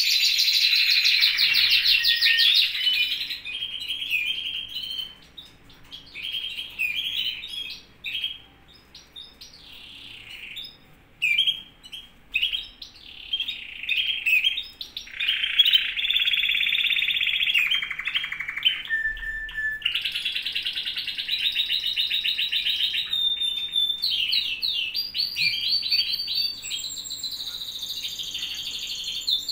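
Several caged canaries singing long, rapid trills and chirps. The song is loud and unbroken at the start, breaks into sparser, quieter phrases for the next ten seconds or so, and runs steadily again through the last third.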